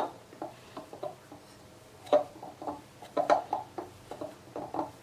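Hands gathering and pressing shortcrust tart dough in a bowl, giving soft, irregular handling sounds.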